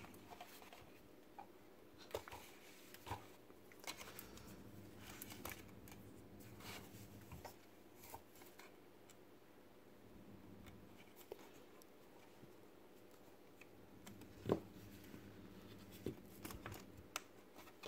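Faint scattered clicks and scrapes of small plastic parts being handled: a robot servo motor and its cable being fitted and plugged in, with one sharper click about fourteen and a half seconds in.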